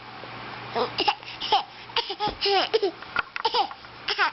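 A baby babbling in a string of short, high-pitched vocal sounds whose pitch rises and falls.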